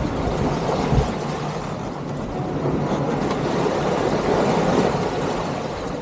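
Steady rush of wind and sea around a sailing yacht under way at speed, with a low rumble. A single thump about a second in.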